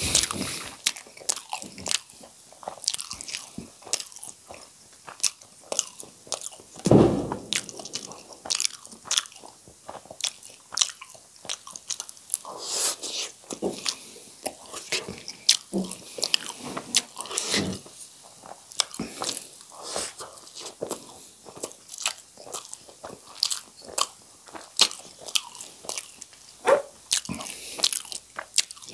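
Close-miked mouth sounds of a person eating spicy noodles with chopsticks: a steady run of short, wet chewing and smacking clicks, with one louder, deeper sound about seven seconds in.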